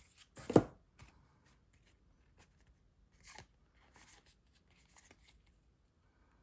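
Sports card pack and cards being handled: one sharp rustle about half a second in, then faint scattered rustles and clicks as the cards are sorted through.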